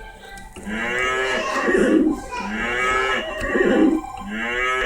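Electronic keyboard in sound-effect mode playing a sampled cow moo, three times in a row as keys are pressed. Each moo lasts about a second and a half and opens with a rising swoop in pitch.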